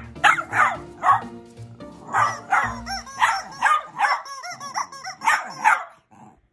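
Small terrier barking excitedly at a rubber chicken toy, sharp barks in quick runs of about three a second, stopping near the end.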